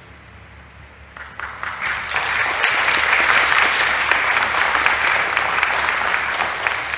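Congregation applauding: the clapping begins about a second in, swells quickly into steady applause and starts to die away near the end.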